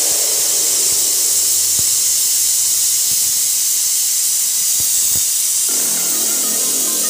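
Aluminium stovetop pressure cooker hissing steadily as steam escapes past its vent weight: the pressure is building toward its whistle.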